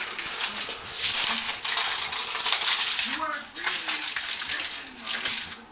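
Aluminium foil crinkling and rustling, with sharp clinks of a utensil against a dish, as baked fish in its foil is shifted into a serving dish.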